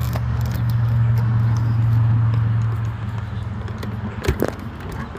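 Briggs & Stratton flathead small engine running with a steady low hum, then dying out about three seconds in, followed by a single knock.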